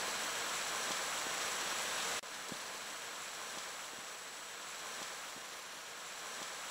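Heavy rain falling, a steady dense hiss that drops abruptly to a slightly lower level about two seconds in.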